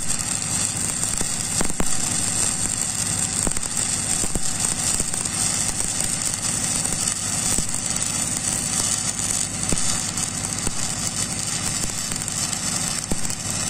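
Stick-welding arc of a 6010 cellulosic electrode running the root pass on a steel pipe joint: a steady, harsh crackle and sizzle, over a steady low hum. The arc cuts off near the end.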